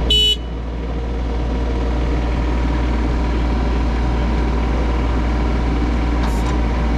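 Kubota U25 mini excavator's diesel engine idling steadily. Right at the start there is a short electronic beep, after which the level dips briefly and builds back up over about a second.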